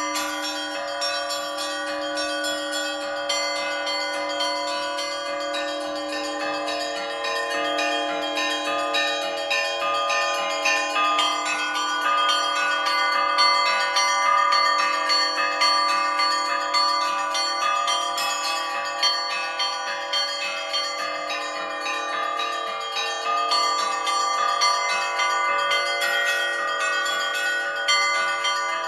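Orthodox church bells rung by a bell-ringer in a continuous peal. Quick, dense strokes on the small bells ring over the long-sounding tones of the larger bells.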